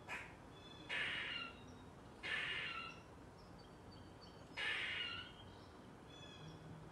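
Grey squirrel alarm calling: three harsh, drawn-out calls of about half a second each, spaced a second and a half to two seconds apart.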